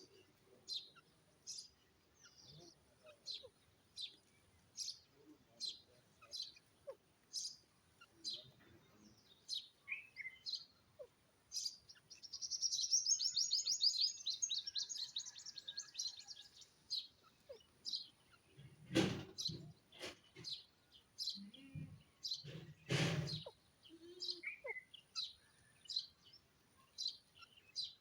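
Grey francolin calling: short high call notes repeating roughly every half second, with a fast, dense trill for several seconds around the middle. A few loud knocks come about two thirds of the way through.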